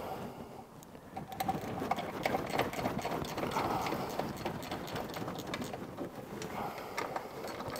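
Ratchet wrench clicking in quick runs as the bolts of a car's air cleaner housing are undone, starting about a second in.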